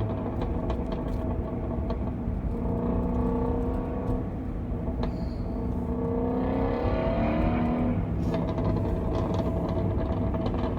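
Ford Shelby GT350R's 5.2-litre flat-plane-crank V8 running at a steady cruise, then pulling with a rising note from about two and a half seconds in and dropping back about eight seconds in. Light exhaust crackles can be heard at the start and after it drops back.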